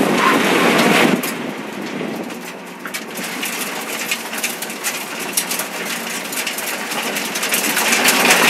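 Nissan GT-R race car's engine running hard, then falling away about a second in as the driver lifts off past the finish. After that, tyres rolling on loose dirt and gravel, with many sharp ticks of stones flicking against the car's underside.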